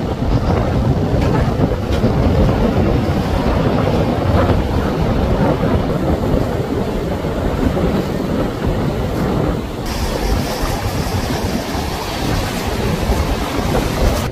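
Wind buffeting the microphone over surf and choppy sea water, a steady, loud rushing noise. The sound changes abruptly about ten seconds in.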